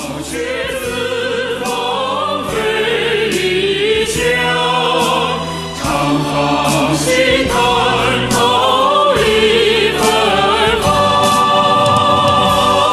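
Background music with a choir singing, the voices held in long notes with strong vibrato.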